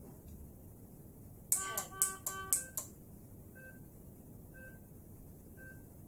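Electronic tones: a quick run of about five sharp, chime-like notes, then about four short, faint beeps about a second apart.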